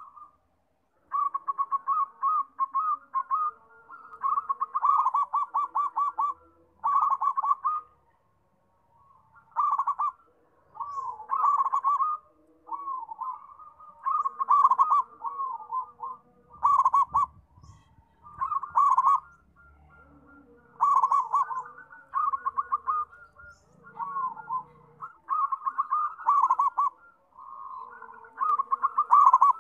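Zebra dove cooing: quick staccato trilled phrases, repeated in bursts of one to two seconds with short pauses between.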